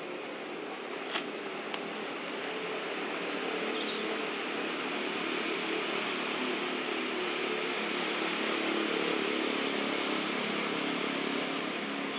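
A motor vehicle's engine droning in the distance, slowly growing louder and easing off a little near the end, over a steady outdoor hiss; two faint clicks come about a second in.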